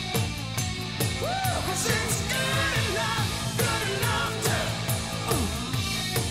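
A song with singing over a steady drum beat.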